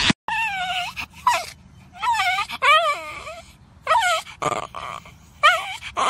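Yorkshire terrier 'talking': a series of about seven short whining calls, each bending up and down in pitch, with brief pauses between them.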